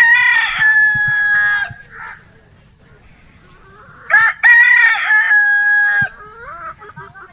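Roosters crowing: one long crow ending about a second and a half in, and a second long crow starting about four seconds in and lasting about two seconds, followed by a few short, softer calls.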